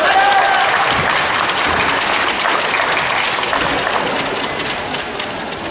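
Spectators in a sports hall clapping and cheering as a still rings routine ends with the dismount. A voice calls out briefly at the start, and the clapping slowly dies away.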